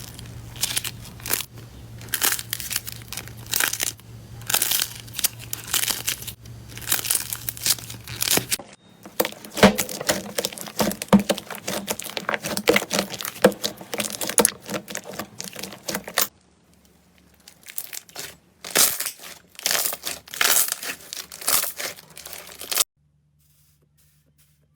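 Slime being squeezed, stretched and pressed by hand, making dense crackling and popping sounds in quick bursts. There are three separate takes with abrupt cuts, and a low hum lies under the first one.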